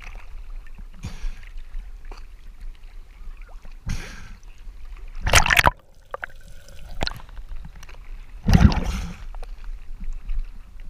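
Sea water sloshing and gurgling around a camera at the surface as it dips under and comes back up, with a few short rushes of water, the loudest about five and a half and nine seconds in.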